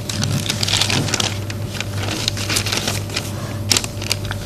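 Marker pen writing on a whiteboard: a run of short, irregular scratchy strokes and taps, over a steady low hum.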